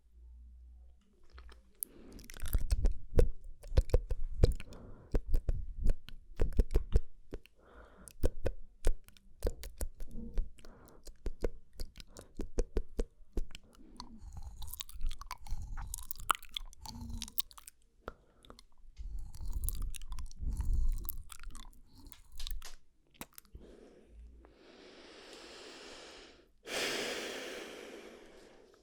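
Close-microphone mouth sounds: a quick, irregular run of wet clicks and smacks of the lips and tongue, then near the end two long hissing sounds, the second louder.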